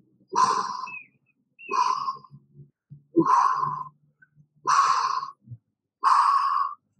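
A man's forceful breathy exhalations, five of them about a second and a half apart, one with each butterfly crunch.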